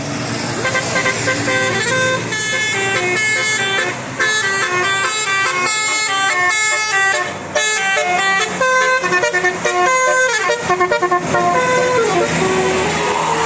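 Bus telolet horn, a multi-tone musical air horn, playing a quick tune of many short stepped notes over a steady low hum. The tune ends about twelve seconds in with a run of falling notes.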